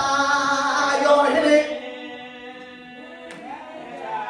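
A man singing a slow worship chorus in long held notes: a loud phrase for the first second and a half, then a quieter sustained note.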